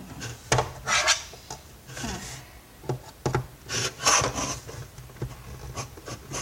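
A large screwdriver scraping and prying against the parts of a vacuum cleaner being dismantled: several short bursts of rasping scrapes with sharp clicks between them.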